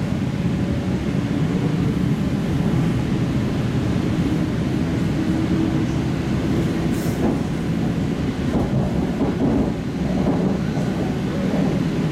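EP2D electric multiple unit running between stations, heard from inside: a steady rumble of wheels on rail with a traction-motor hum that rises slightly in pitch, and a few knocks over the track in the second half.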